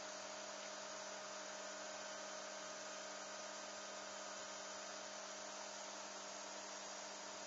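Faint, steady electrical hum with an even hiss, unchanging throughout.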